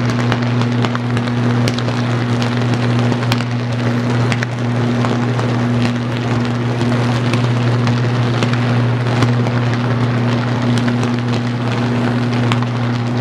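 Sustained high-voltage arc burning at a pole-top switch on an overhead power line: a loud, steady low buzz with continuous crackling and sharp pops, the sound of a short-circuit fault that has not yet been cleared.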